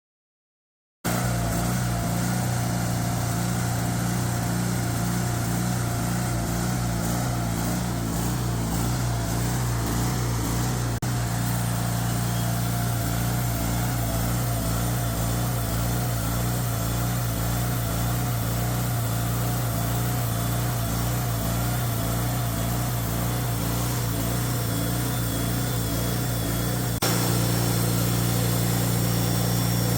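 Portable sawmill's engine running steadily while it saws a poplar log into boards. It cuts in abruptly about a second in and gets slightly louder near the end.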